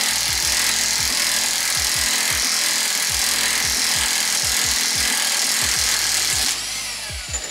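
Corded electric impact wrench hammering on a front axle nut through a 32 mm impact socket, breaking the nut loose; the hammering stops about six and a half seconds in. Background music with a steady beat plays underneath.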